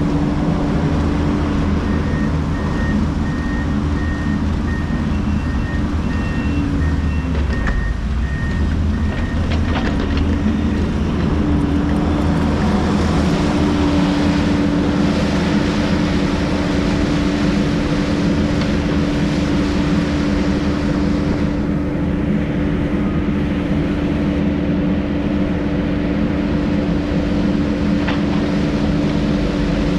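Kubota U55 mini excavator's diesel engine running steadily at working speed, its pitch sagging briefly under load about seven to nine seconds in. For the first several seconds a high electronic beeping repeats over it, like a machine's warning alarm.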